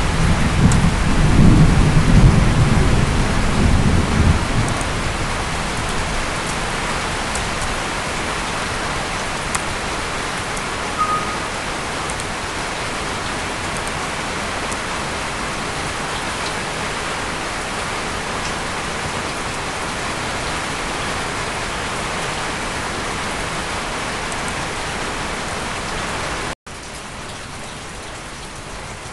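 Steady heavy rain with a low rumble of thunder in the first few seconds. About two and a half seconds before the end the sound cuts out for an instant and then carries on quieter.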